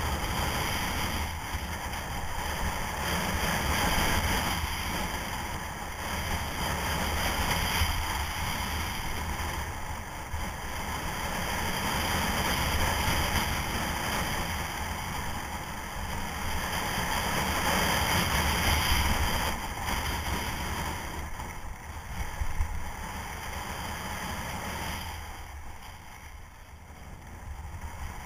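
Skis sliding and scraping over hard groomed snow through a series of turns, the rush of the edges rising and falling with each turn, mixed with wind buffeting the camera microphone. It grows quieter near the end.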